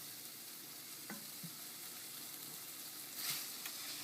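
Potatoes, onions and tomatoes with chole masala sizzling in hot oil in a pan as they are stirred, with a few faint ticks and a brief louder stretch a little past three seconds in.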